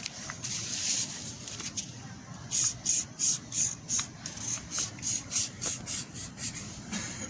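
Crayon scribbling on construction paper: a scraping rub that turns into quick back-and-forth strokes, about three a second, from about two and a half seconds in.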